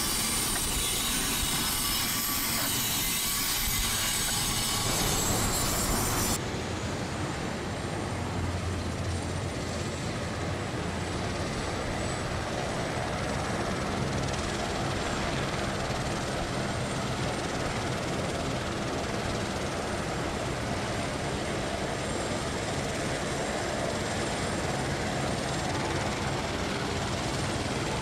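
EMD SD40JR Joule battery-electric switching locomotive moving slowly, making a steady mechanical hum with no diesel engine note. About six seconds in, the sound changes to a slightly quieter, steadier hum.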